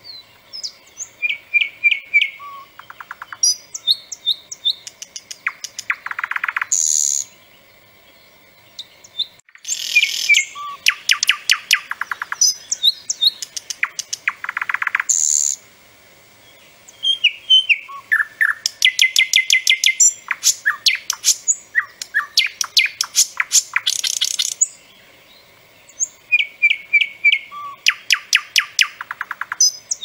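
Thrush nightingale singing loudly in phrases of several seconds, with short pauses between them. Each phrase is built of rapid repeated clicks and rattles, mixed with clear whistled notes and a few harsh notes.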